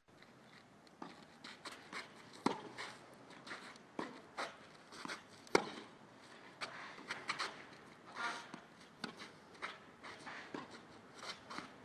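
Tennis ball being hit back and forth: a string of sharp racket-on-ball knocks, the loudest about five and a half seconds in, with fainter ball bounces and footsteps between.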